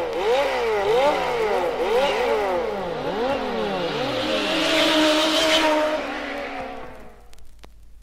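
Racing cars speeding past one after another, their overlapping engine notes rising and falling in pitch as each goes by. The sound fades out about seven seconds in.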